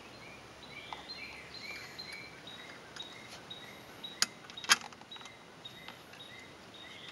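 Two sharp clicks a little past four seconds in, from the small screws and washers for the plate bracket being handled. Under them is faint outdoor ambience with a high chirp repeating steadily.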